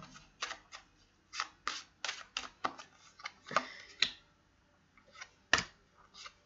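Tarot cards being drawn from a hand-held deck and laid down on a table: a run of short, irregular clicks and taps, with one sharper click about five and a half seconds in.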